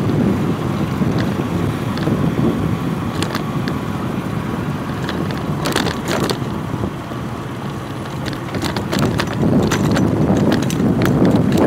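Golf cart driving along a paved cart path: a steady low rumble of tyres and wind buffeting the microphone, with sharp clicks and rattles about six seconds in and again near the end.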